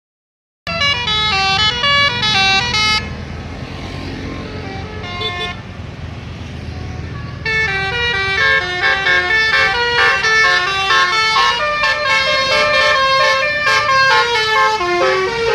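Indonesian Basuri telolet bus horn, a multi-tone electric horn, playing a quick melody of stepping notes. It breaks off about three seconds in, leaving engine and road noise with one short toot in the middle, and starts playing again about halfway through.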